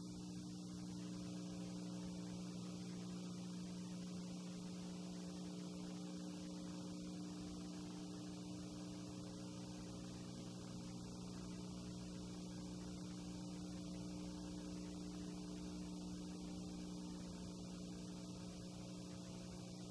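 Steady electrical mains hum with a layer of hiss from the transfer of silent 8 mm film. No sound of the wrestling match itself.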